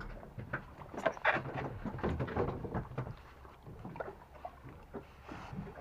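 Water lapping and slapping against the side of a small fishing boat, with irregular knocks and clicks from the hull and fishing gear.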